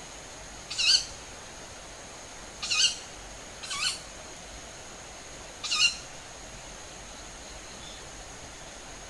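A bird's short, harsh, hissing calls, four of them one to two seconds apart. A steady thin high tone runs beneath them.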